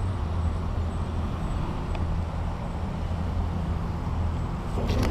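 Steady low outdoor rumble with no distinct events, only a faint tick about two seconds in.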